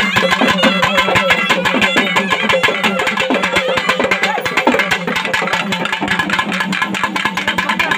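Loud traditional Tamil temple festival music: fast, steady drumming with a wavering melody over a steady low drone.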